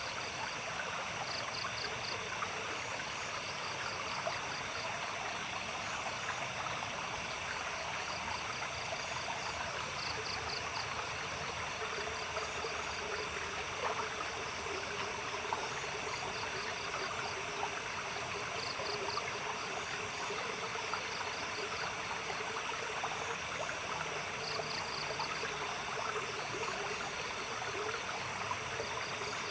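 A stream babbling steadily. Night animals call over it in short pulsed trills every few seconds, above a steady high-pitched drone.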